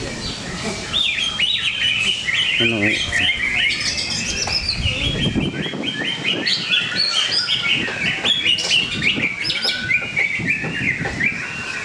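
Greater green leafbird (cucak ijo) singing a fast, unbroken run of high chirping and whistled notes, starting about a second in, over a low background murmur of voices.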